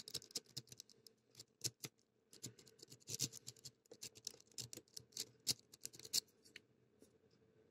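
A lock pick clicking and scraping against the pins inside an IBFM padlock's keyway under light tension: faint, irregular clicks that die away about six and a half seconds in.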